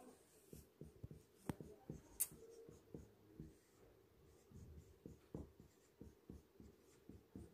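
Felt-tip marker writing on a whiteboard: a faint, irregular run of short strokes and taps of the tip against the board.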